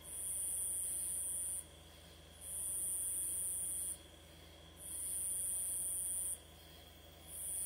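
Insect calling at dusk, a high-pitched buzzing trill that runs for about a second and a half, stops for just under a second, and starts again, four times over.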